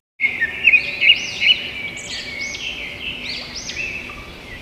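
Birds chirping: a busy run of short, quickly repeated high chirps, several overlapping, starting right after a moment of silence.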